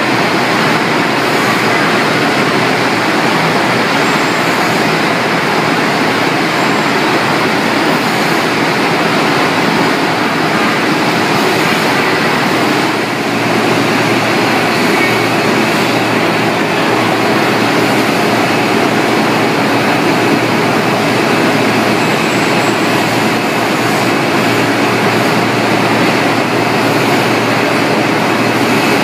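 Steady, loud rushing noise of a poultry evisceration line: water sprays rinsing chicken carcasses on an overhead shackle conveyor, mixed with the line's machinery running.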